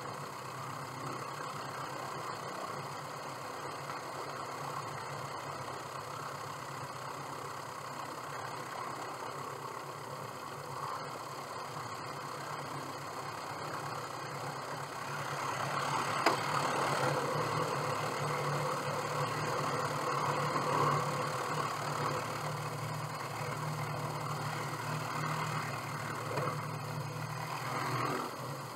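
Single-engine light aircraft's piston engine and propeller idling during taxi, growing louder about halfway through as the power comes up.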